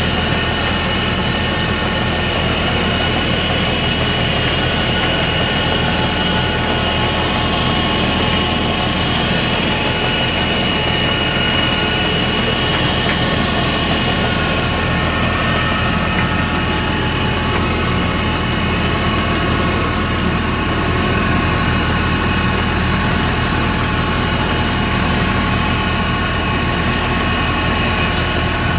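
Oliwia berry combine harvester at work driving down a row of bushes: a steady engine drone with constant high-pitched whine tones over it, unchanging throughout.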